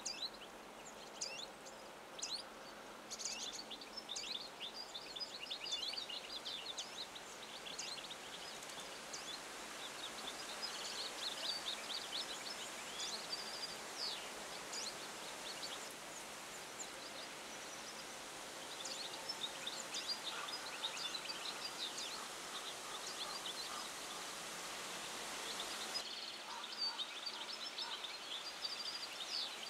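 European goldfinches twittering, a dense run of quick high chirps and trills over steady outdoor background noise. The background changes abruptly near the end.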